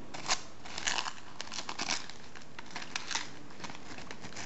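Newspaper wrapping being crinkled and torn by hand off a phone case: irregular rustling and tearing of paper in short bursts.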